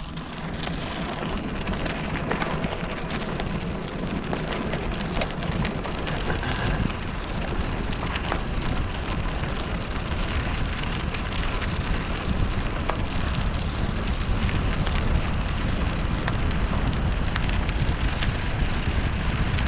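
Bicycle tyres, pumped to 60 psi, rolling over a gravel path: a steady crackling rush of small stones with many tiny clicks, over a low rumble of wind on the camera.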